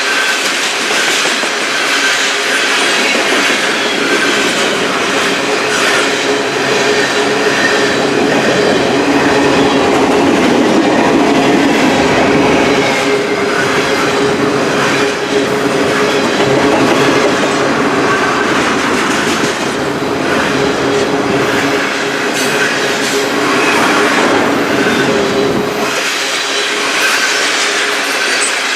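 Freight train rolling past, loud and steady, with the wheels clicking over rail joints all the way through and some squeal from the wheels.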